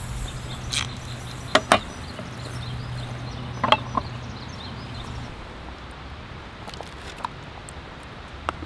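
A few sharp clinks and knocks of a small cast-iron rice pot and its lid being handled and set down on its metal windscreen stand over lit solid-fuel tablets: two close together about a second and a half in, two more near four seconds, and fainter ticks near the end. A low steady hum runs under the first five seconds.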